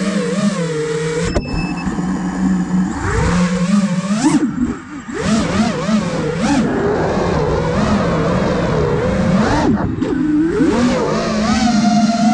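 Five-inch FPV racing quadcopter's brushless motors and propellers whining in flight, the pitch sweeping up and down with each throttle punch and release. The sound drops away briefly about five seconds in as the throttle is cut, then climbs again.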